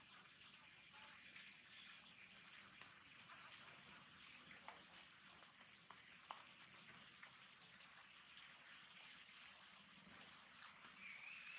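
Faint, steady rain hiss with a few sharp drip ticks. A thin, high-pitched tone starts near the end.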